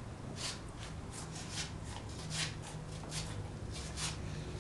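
A knife cutting and scraping through a sturgeon's tough, bony-plated skin as the carcass is skinned, in short rasping strokes, two or three a second and unevenly spaced.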